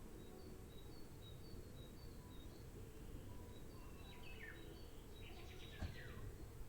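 Songbirds chirping and singing: short high chirps repeat throughout, with a few quick falling notes and a rapid trill past the middle, over a steady low background noise. A single sharp click comes near the end.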